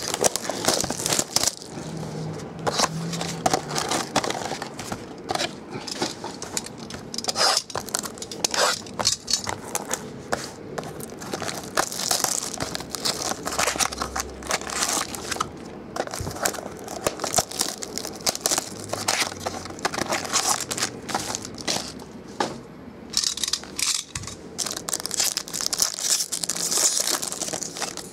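Foil wrapping and plastic shrink wrap of a trading card box crinkling and tearing as they are ripped open and crumpled, with irregular sharp crackles and the clicks and scrapes of cardboard being handled.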